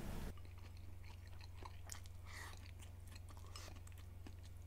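A person chewing food, faint and close, with many small clicks, some from wooden chopsticks against a ceramic rice bowl.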